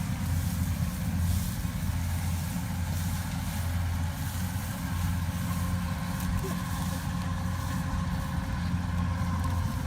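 An engine running steadily at a constant speed, giving an even low hum, with a faint higher whine joining in over the second half.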